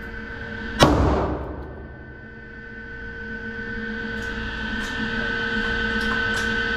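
A single 9mm pistol shot about a second in, echoing off the walls of an indoor shooting range. It is followed by a steady hum and a few faint sharp ticks before the next shot.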